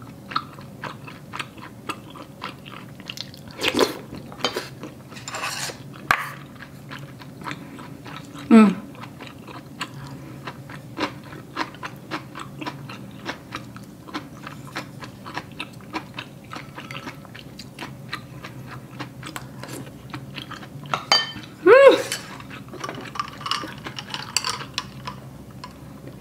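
Close-up eating sounds of rice cake soup: chewing and slurping, with small clicks of a wooden spoon and chopsticks against the ceramic bowl, and a couple of short hums of enjoyment, one about a third of the way in and one near the end.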